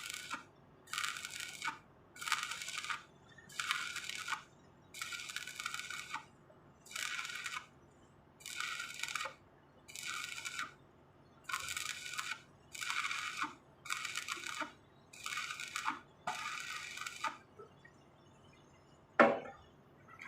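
Electric arc welding crackling in short bursts, about one a second, the arc struck and broken again and again along the weld. The bursts stop near the end and are followed by a single sharp knock, the loudest sound.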